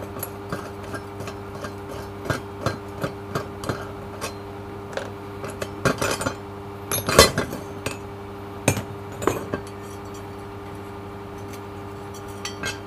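Steel parts of a bearing puller clicking, clinking and knocking together as it is unscrewed and taken apart by hand, with a few louder knocks around six to nine seconds in. A steady low hum sits underneath.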